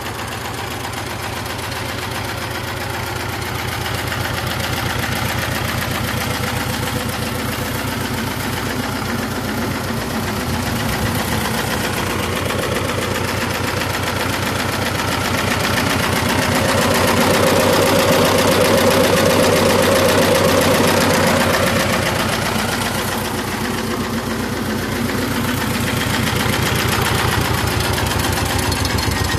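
A T-25 tractor's two-cylinder air-cooled diesel engine running steadily with a fast, even chugging. It grows louder for a few seconds a little past the middle, then settles back.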